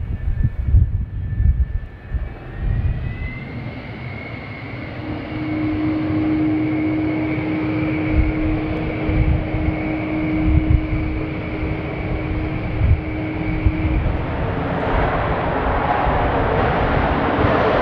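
Twin J79 turbojets of an F-4EJ Kai Phantom: a high engine whine that rises in pitch about three seconds in, then holds steady over a low rumble. From about fourteen seconds in, a broad rushing noise builds and grows louder as the engines go up to take-off power and the jet starts its take-off roll.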